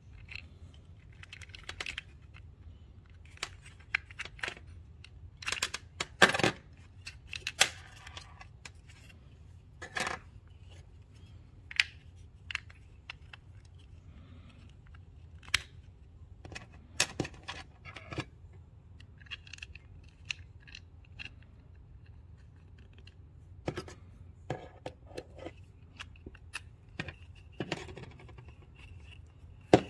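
Hands working on a plastic scooter key-switch housing with a small hex key: irregular clicks, taps and light scrapes of plastic and metal parts, with a few sharper knocks.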